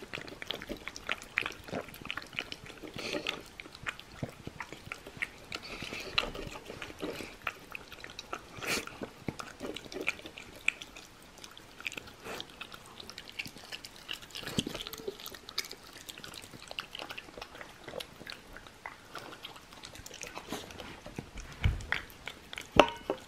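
Shiba Inu eating stewed persimmon and pork from a stainless steel bowl: wet licking and chewing with many small clicks, and one sharper knock near the end.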